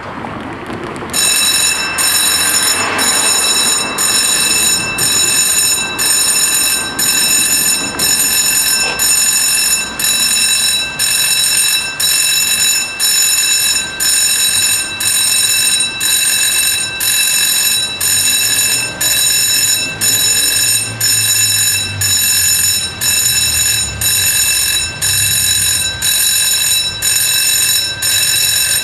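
Level-crossing warning bell ringing in an even, fast rhythm, about one and a half strokes a second, starting about a second in: the crossing's warning that a train is approaching and the barriers are about to lower.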